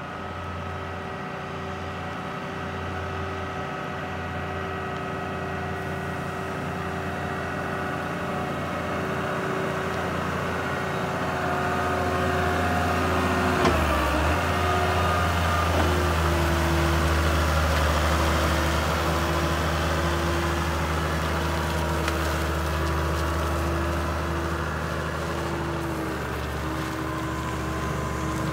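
Diesel engine of a Mitsubishi FD70 forklift running steadily, growing louder over the first half. The engine note shifts briefly about halfway through, while the mast is being raised.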